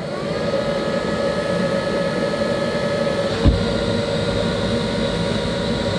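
Tornado machine's blower fan switched on, spinning up over about half a second with a rising whine and then running steadily, over the hum of the machine's other fans already running. A single thump about three and a half seconds in, after which the pitch of the running fans shifts slightly.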